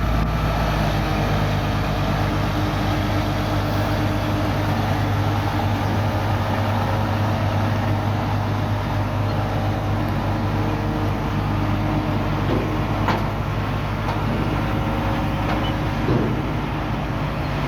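Heavy construction machinery's diesel engine running steadily at a constant pitch, with a few short knocks in the last few seconds.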